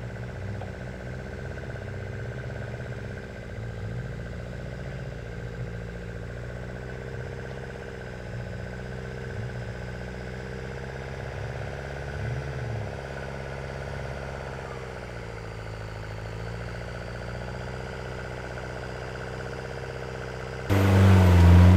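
Suzuki Jimny's engine idling steadily, its pitch wavering slightly. About a second before the end it jumps to loud revving as the Jimny drives onto a traction ramp in the bog.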